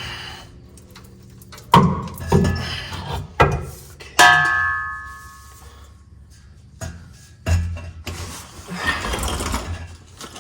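Metal knocks and clanks from an exhaust pipe being shifted along in its hangers, with one hit about four seconds in that rings out like a struck pipe. A thud follows, then a few seconds of scraping and rubbing.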